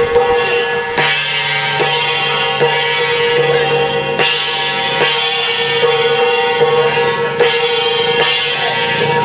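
Music with a drum beat, one strong stroke a little under every second, over steady held tones.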